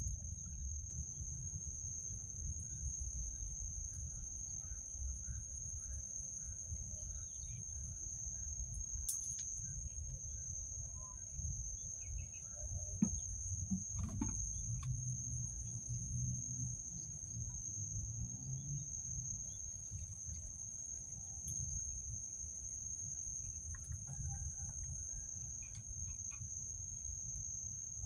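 Rural outdoor ambience: a low wind rumble on the microphone, a steady high-pitched insect drone, and scattered chicken clucks. A couple of sharp knocks come about halfway through.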